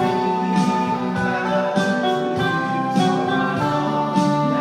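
Instrumental music with sustained chords over a steady beat, about a stroke every 0.6 seconds, with no voice.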